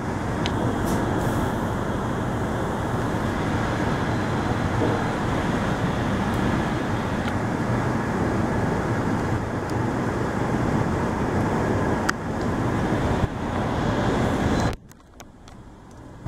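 Passenger express train pulling out, heard from a coach: a steady rumble of wheels on rails and rushing air, with a few sharp clicks from the track. The noise falls away abruptly near the end.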